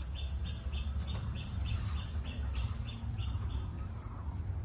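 Short high chirps repeating about three times a second, stopping about three and a half seconds in, over a steady low rumble.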